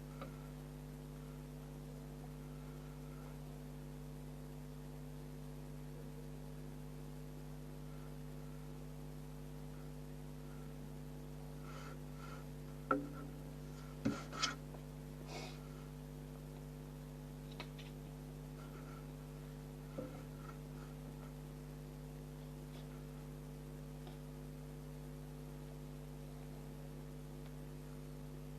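Steady electrical hum, with a few short knocks or clicks near the middle.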